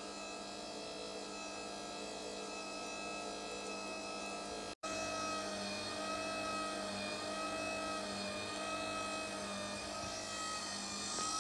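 Philips electric pasta maker running, its motor humming steadily while the paddle mixes flour with egg and water into crumbly dough; the pitch wavers slightly as the paddle works. The sound cuts out for an instant about five seconds in and comes back a little louder.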